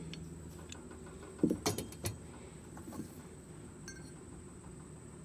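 Small metal parts being handled and clinking together: a quick cluster of sharp clinks about a second and a half in, then a couple of fainter ticks.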